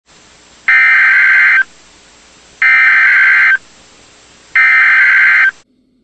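Emergency Alert System SAME header from NOAA Weather Radio: three shrill digital data bursts, each about a second long and about two seconds apart, over a faint steady hiss that stops near the end. The bursts are the coded header that opens a weather alert, here a winter storm watch.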